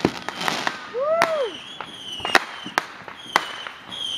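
Fireworks going off: a string of sharp bangs at irregular intervals, with high whistling tones between them.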